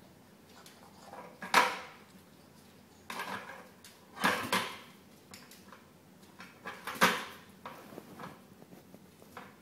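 Plastic toy bucket and the toys inside it knocking and rattling as puppies root into it and bump it, in several separate clatters, the loudest about one and a half, four and a half and seven seconds in.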